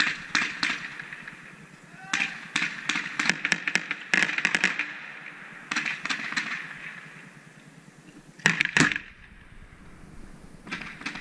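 Strings of airsoft gunfire: quick pops several to a string, in four or five short bursts, the loudest a little past the middle.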